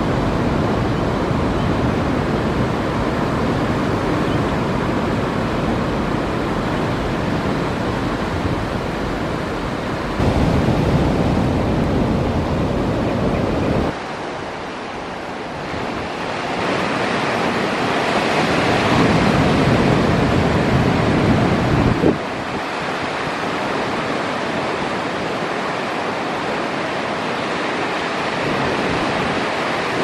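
Ocean surf breaking and washing, with wind buffeting the microphone: a steady rush of noise that changes abruptly about ten, fourteen and twenty-two seconds in.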